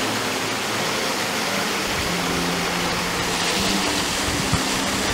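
Steady rushing noise with no clear events, like running water or wind on the microphone.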